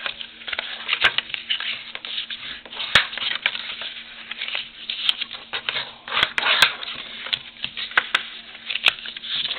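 White cardstock being folded and creased by hand along its score lines: rustling and rubbing of stiff paper, broken by frequent sharp light clicks and taps.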